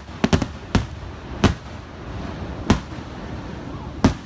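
Aerial firework shells bursting overhead in a series of sharp bangs, each with a short echo. Three come in quick succession in the first half second, then single bangs follow about a second or more apart, the last near the end.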